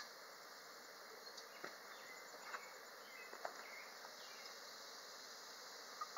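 Faint outdoor background of insects buzzing, with a few faint scattered ticks.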